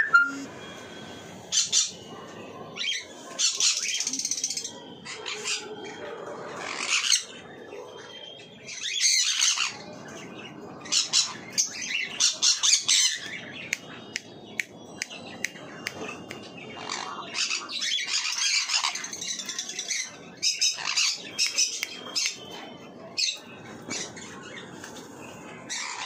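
Sun conures giving loud, harsh screeching calls in repeated bursts, with short chirps in between.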